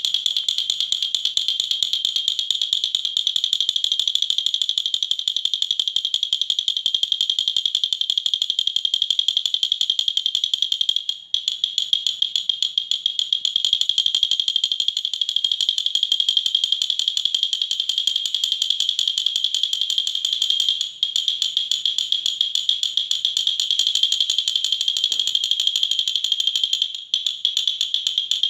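Wooden baby rattle (jhunjhuna) rattled continuously: a fast, dense, even clatter, briefly broken three times.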